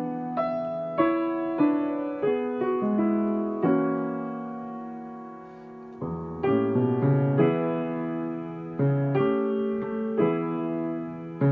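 Grand piano played solo: a slow passage of melody over chords. A chord is held and dies away about halfway through before the playing picks up again.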